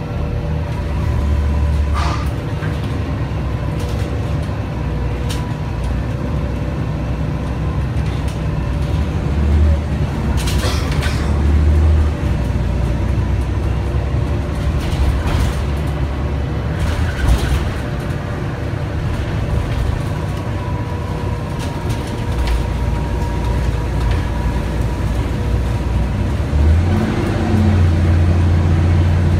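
Interior sound of a Mercedes-Benz O 405 NH city bus under way, with its rear-mounted Mercedes-Benz M 447 hG natural-gas engine running and the engine note stepping up and down several times as the ZF Ecomat automatic gearbox works through the gears. A few sharp rattles from the cabin fittings cut through.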